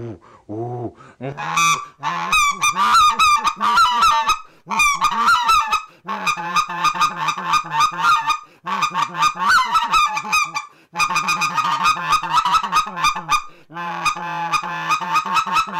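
RedBone short-reed goose call blown in fast runs of scratchy, growling goose notes, in several bursts with short breaks. This is the scratch: blown with lots of voice and little air, which makes it more dramatic.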